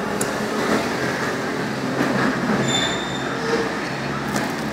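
Steady background din of a busy street, with a brief high-pitched squeal about halfway through.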